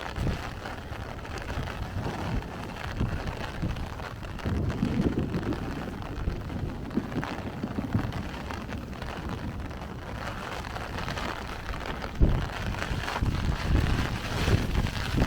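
Heavy rain falling in a thunderstorm while gusty wind buffets the microphone in uneven low gusts. There is a sudden loud thump about twelve seconds in.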